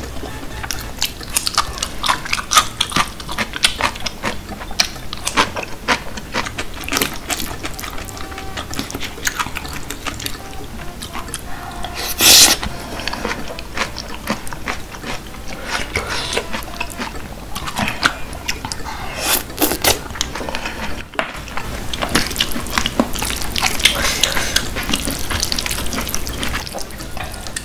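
Close-miked eating of jjajangmyeon noodles in thick black bean sauce: wet chewing and mouth smacks in quick succession, with one louder wet sound about twelve seconds in. Near the end, wooden chopsticks stir and lift the sticky sauced noodles in a plastic tray.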